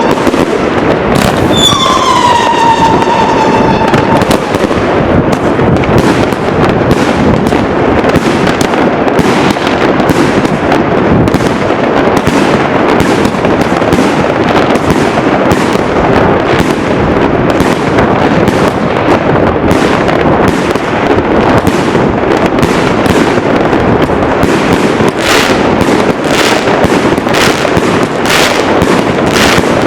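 A dense, continuous barrage of fireworks: many overlapping bangs and crackling reports. A whistling firework's falling whistle sounds about a second in.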